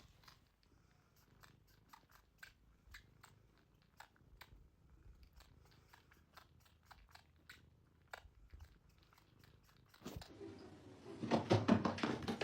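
An animal chewing: faint, irregular crunchy clicks for about ten seconds. About ten seconds in, a much louder sound starts.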